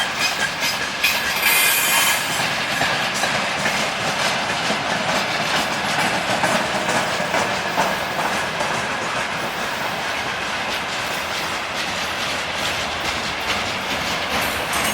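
Freight train wagons rolling past on the rails, the wheels clattering and knocking over the rail joints with squeaking, a high squeal in the first couple of seconds. Everything is squeaking and knocking.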